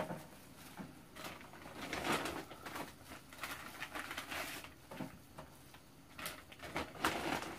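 Plastic food packaging crinkling and rustling in irregular bursts as a packet is handled, after a sharp click at the very start.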